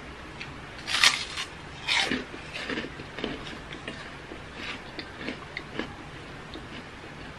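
Crunching bites into a crisp fried cracker (kerupuk): two loud crunches about a second apart, then smaller crackling chews and breaking pieces for several seconds, over the steady hum of an electric fan.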